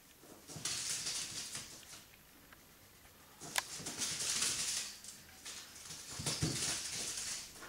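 Chihuahua puppy scrabbling and rustling on the cushion of a wicker dog bed as it wrestles a plush toy, in three bursts of rustling with a sharp click near the middle.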